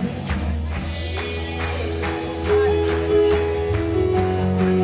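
Live band music: sustained stage-piano chords over a steady percussion beat of about two hits a second.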